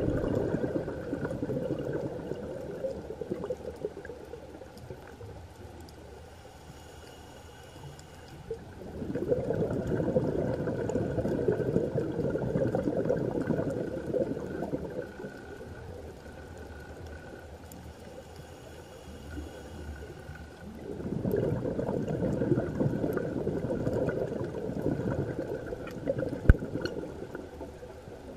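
Scuba diver breathing through a regulator underwater: three long bursts of bubbling exhalation, roughly twelve seconds apart, with quieter inhalation between them. A single sharp click near the end.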